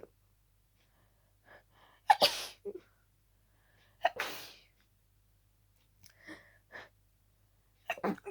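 A person in a harsh sneezing fit from a cold: three loud sneezes, about 2 s in, about 4 s in and near the end, each after a quick catching intake of breath.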